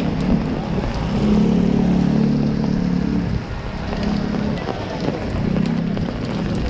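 Street noise in the rain: a vehicle engine humming on and off over a steady low rumble of wind and rain.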